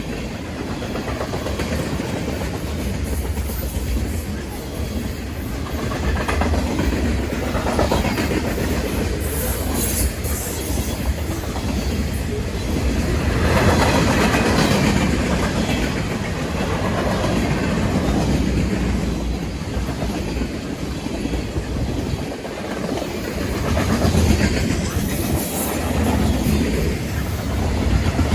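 A CN freight train's cars rolling past, a steady rumble of steel wheels on the rails.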